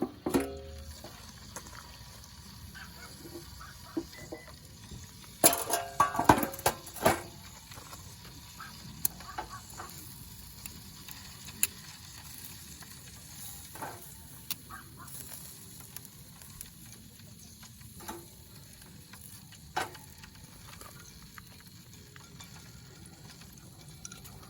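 Food sizzling on a camp grill, a steady hiss, with scattered sharp clicks and a short flurry of clatters about six seconds in.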